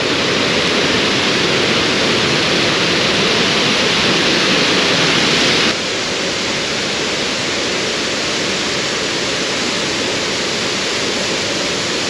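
Waterfall: a steady rush of falling water, a little quieter and duller from about six seconds in.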